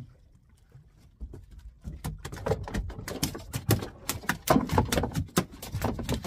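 Irregular knocks, clicks and clatter of gear being handled close to the microphone on a small boat, starting about a second in and getting busier after two seconds.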